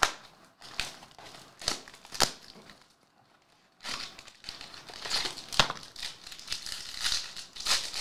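Cardboard box and foil trading-card pack being handled and torn open: a few sharp clicks and snaps in the first couple of seconds, then, about four seconds in, steady crinkling of card and foil as the pack is opened.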